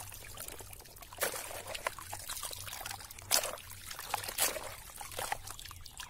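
Muddy water trickling and dripping off toy trucks as they are lifted out of a mud puddle and handled, with a few brief splashes or knocks.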